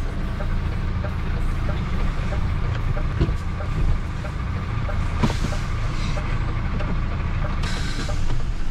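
Truck engine running, a steady low rumble, with a couple of sharp clicks about three and five seconds in and short hissing bursts midway and near the end.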